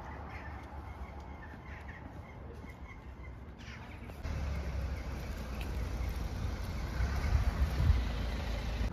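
Outdoor ambience with a few faint bird calls; from about four seconds in, wind rumbles on the microphone and grows louder.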